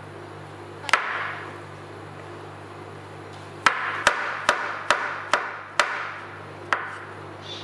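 Chef's knife slicing button mushrooms on a bamboo cutting board, the blade knocking on the board with each cut: one knock about a second in, then a run of seven quick knocks, two to three a second.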